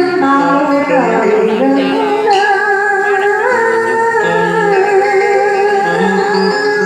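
Southern Vietnamese đờn ca tài tử music: traditional string instruments playing a slow melody with long held, ornamented notes.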